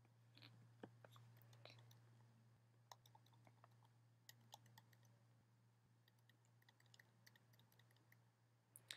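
Near silence: room tone with a faint steady low hum and scattered faint ticks.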